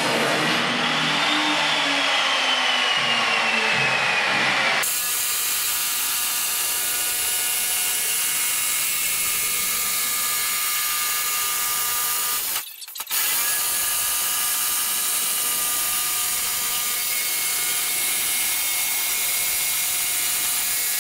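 Handheld electric jigsaw cutting through steel plate, running steadily, with a brief stop about 13 seconds in. The first five seconds hold a different sound with a slowly falling tone that cuts off abruptly as the jigsaw comes in.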